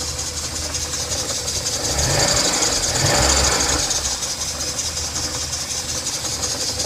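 1984 Porsche 944's four-cylinder engine running after a cold start, with a steady hiss over the engine note; it swells briefly about two to three seconds in. The owner finds the noises it makes odd.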